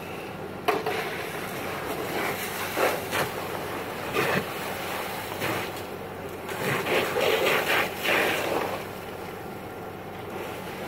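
A car fully ablaze, a steady rushing noise with a sharp pop about a second in and louder surges around three and four seconds in and again from about seven to nine seconds.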